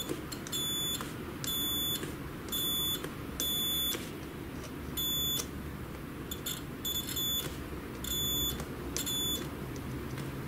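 A digital multimeter's continuity buzzer gives about eight short, high-pitched beeps at uneven intervals, stuttering briefly around the middle, as the test probes touch an LED strip's contacts. Each beep signals that the contact conducts.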